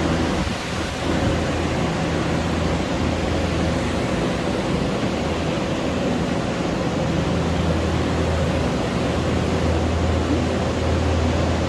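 Commercial drying equipment, air movers and dehumidifiers, running steadily: a constant rush of blown air over a low motor hum, as water-damaged rooms are being dried out.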